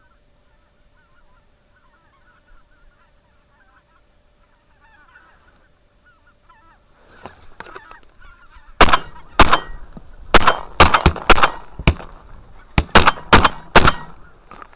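A flock of geese honking, faint at first and growing louder as they come in, then a rapid volley of about eleven shotgun shots over some five seconds as hunters fire at the flock, the honking going on between the shots.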